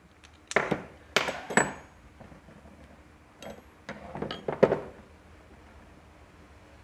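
Metal hand tools and engine parts clinking and knocking against each other, about eight sharp metallic clicks with brief ringing in the first five seconds.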